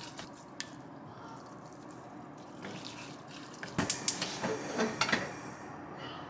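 Gas stove burner being lit: the knob is turned and the spark igniter clicks rapidly, a quick run of sharp ticks a bit under four seconds in, lasting about a second and a half.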